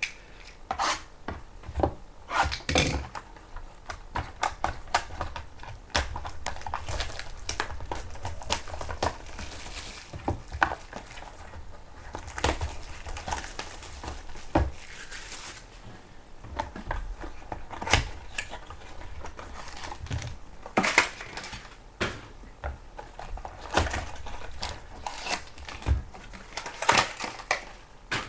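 A sealed trading-card box being unwrapped by hand: plastic shrink-wrap crinkling, with the cardboard box and foil packs rustling and tapping in irregular short bursts.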